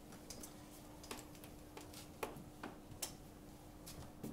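Whiteboard eraser wiping across a whiteboard, heard faintly as soft rubbing with a scattered series of light, irregular taps and clicks, over a low steady hum.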